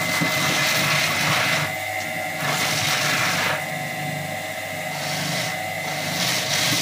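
Small electric motor running steadily with a spinning roller used as a maize sheller, and bursts of harsh scraping noise each time a corn cob is pressed against the roller and its kernels are stripped off, four times.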